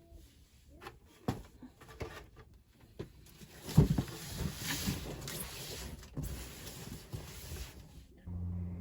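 Rummaging through stored things: scattered knocks and clicks, then a heavy thump about four seconds in, followed by several seconds of rustling and scraping as items are shifted. A low steady hum starts suddenly near the end.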